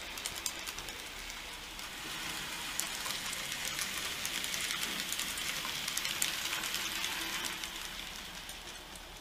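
N gauge model train (a Hall class locomotive hauling Mark 1 coaches) running past: a light rattling hiss of small wheels on the rails with scattered clicks, growing louder through the middle and fading near the end.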